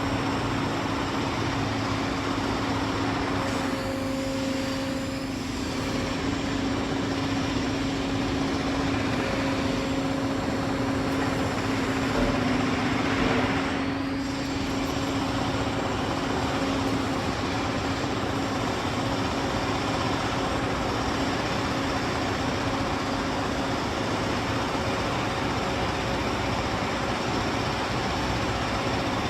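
Rafamet UBC 150 CNC wheel lathe running with a steady machine noise and a droning hum while an axis slide is driven forward. The hum fades out about twenty seconds in.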